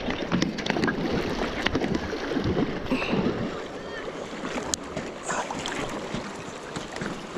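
Fast river current rushing, with wind buffeting the microphone and scattered light clicks.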